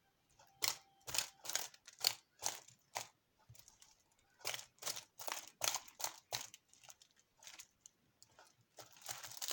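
Homemade fluffy slime worked by hand, giving irregular crackly pops and squishes that come in quick clusters.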